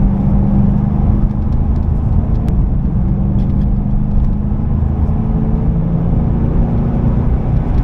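Ford Mustang GT's 4.6-litre V8 pulling at a steady engine note under way, heard from inside the cabin.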